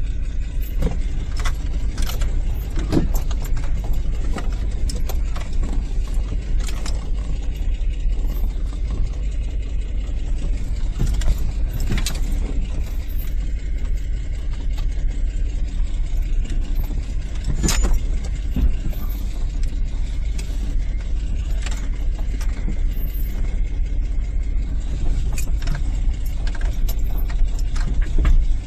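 Toyota FJ62 Land Cruiser's 3F-E straight-six running steadily at low speed, heard from inside the cab as it creeps down a steep rocky dirt trail. Irregular clicks, knocks and rattles from the body come through as it goes over the bumps.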